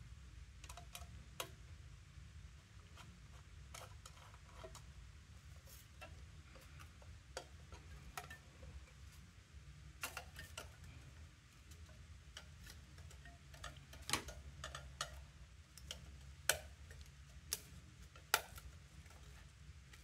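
Small screws being driven into the aluminium enclosure of a Hermes-Lite transceiver with a screwdriver: scattered light metallic clicks and ticks, with a few sharper clicks in the second half, over a low steady hum.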